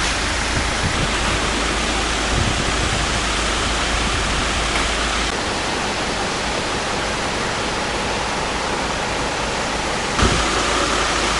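Steady, even hiss of outdoor noise with no distinct events, changing in tone twice, about five and ten seconds in, where the shots cut.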